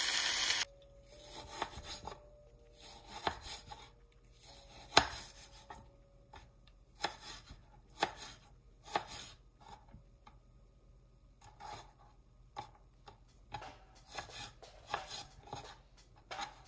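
Onions frying in beef tallow sizzle for a moment, then cut off abruptly. After that a knife slices raw chicken breast on a cutting board, with irregular sharp knocks of the blade against the board every half second to a second and a quieter stretch near the middle.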